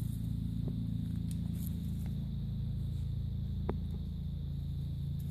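A steady low hum, as of a motor running, with a few faint ticks over it.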